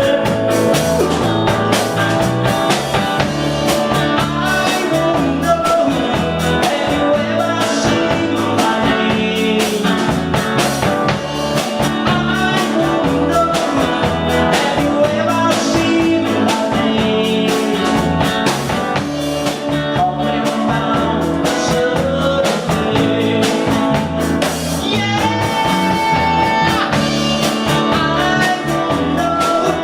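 Live rock band playing: electric guitar, bass and drum kit with a steady beat.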